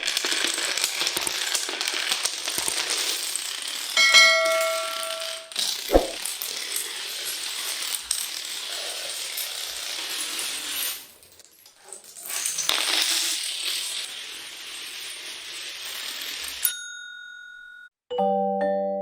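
Dense metallic jingling and clattering, with a ringing ding about four seconds in and a sharp knock near six seconds. It stops near the end, and mallet-percussion music begins.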